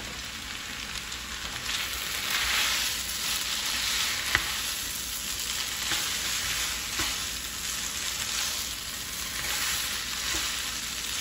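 Egg noodles sizzling in hot oil in a pan as they are stir-fried and tossed with wooden chopsticks, with a few clicks along the way.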